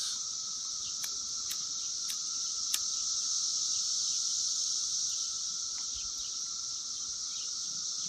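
Steady high-pitched chorus of 17-year periodical cicadas. Four sharp clicks come in the first three seconds as a pipe lighter is struck.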